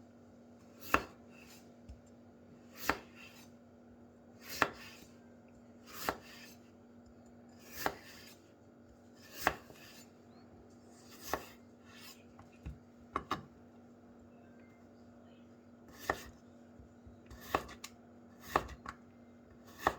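Knife slicing a raw potato into julienne on a cutting board: slow, deliberate strokes, each ending in a sharp knock of the blade on the board about every two seconds, coming a little quicker near the end.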